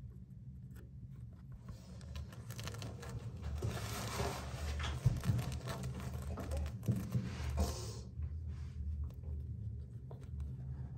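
A hamster scrabbling and burrowing in a woven cloth: a rustling, scratching noise that builds and is loudest about halfway through, then fades, over a low steady hum.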